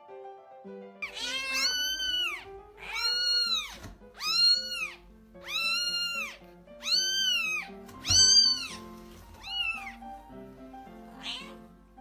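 A cat meowing about seven times in a row, each meow rising then falling in pitch, the last one short. Background music plays underneath.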